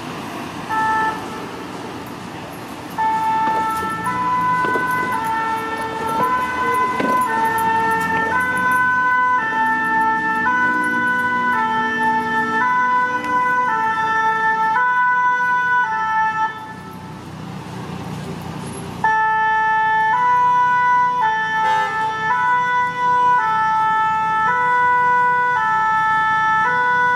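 A French fire-brigade rescue ambulance (VSAV) sounds its two-tone siren, switching steadily back and forth between a high note and a low note. The siren comes in loud about three seconds in. It cuts out for about two seconds past the middle, then starts again.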